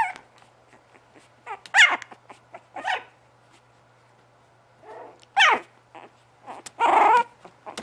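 Young Bugg puppies (Boston terrier–pug cross) yipping and whining in a string of short, high calls, with quieter squeaks between and a slightly longer cry near the end.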